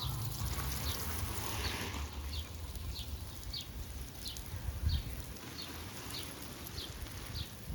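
A small bird calling over and over, a short falling chirp about every two-thirds of a second, over a steady low rumble.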